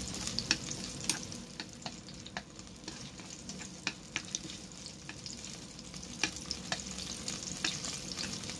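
Sliced ginger and onion sizzling in hot oil in a rice cooker's nonstick inner pot, as they are sautéed. Wooden chopsticks stir them, clicking against the pot again and again.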